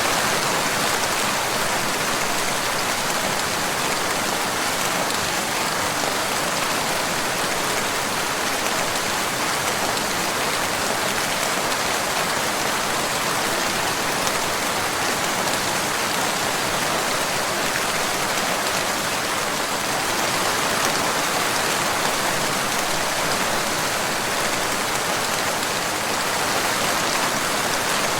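Steady rain falling: an even, unbroken hiss of many drops that holds the same level throughout.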